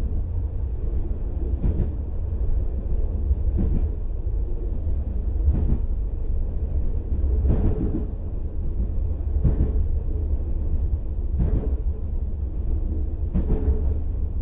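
Regional train running along the track: a steady low rumble, with a short knock about every two seconds from the wheels on the rails.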